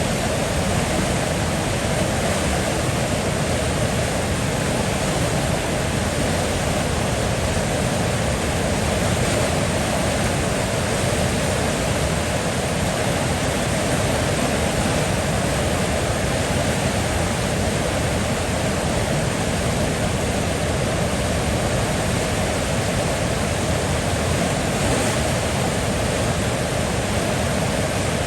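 River water flowing, a steady, even rush of running water that does not change.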